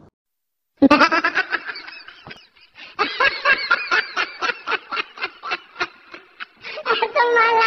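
Laughter in long runs of quick, rhythmic 'ha' bursts, about five a second, starting about a second in after a brief silence and pausing briefly partway through.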